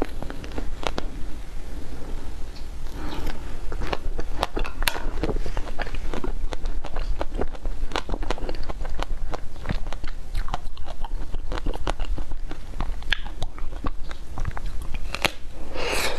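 Close-miked eating of frozen ice cream: steady crunching and chewing with many sharp crackles. Just before the end comes a louder bite into the hard blue coating of an ice-cream bar.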